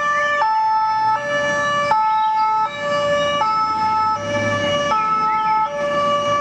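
Swiss ambulance's two-tone siren, alternating steadily between a high and a low note, switching about every three-quarters of a second.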